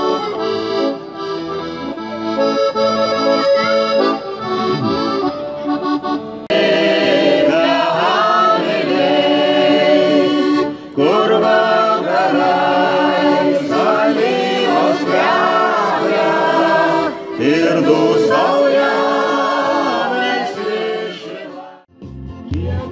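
Accordion playing folk dance music. About six seconds in it cuts abruptly to a folk choir of mostly women singing a song, with the accordion still sounding. Near the end it cuts abruptly again to a different piece with a keyboard.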